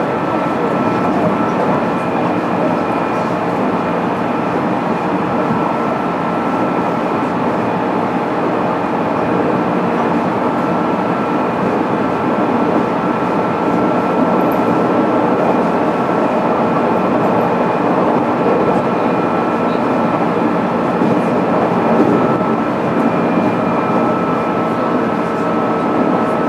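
Running noise of a JR East 205 series electric train, heard from inside one of its motor cars: a steady wheel-on-rail rumble with a faint even whine, the train holding a constant speed.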